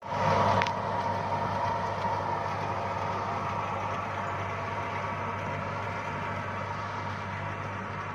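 Tractor engine running steadily while it pulls a pneumatic maize planter through dry soil, with a steady tone from the machinery over the engine hum. There is a brief click about half a second in.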